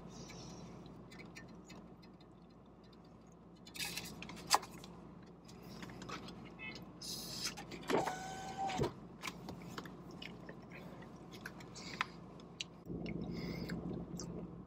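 Quiet car cabin with a steady low hum, scattered small clicks and scrapes of a plastic fork against an instant-noodle cup, and a short squeak-like tone about eight seconds in. The hum gets louder a little before the end.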